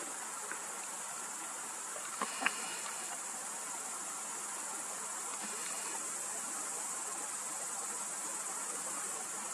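Steady, high-pitched insect chorus with no break, and two faint clicks about two seconds in.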